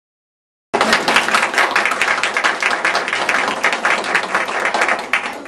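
Audience applauding, many hands clapping at once; it starts abruptly just under a second in and tapers off near the end.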